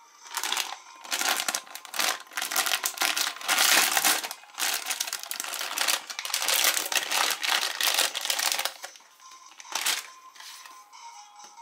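Foil blind-bag packet crinkling and rustling in the hands in a series of bursts, with one short last rustle near the end, as trading cards are pulled out of it.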